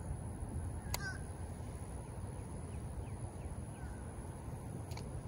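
Wind buffeting the microphone as a steady low rumble, with a few faint bird chirps over it and a sharp click about a second in.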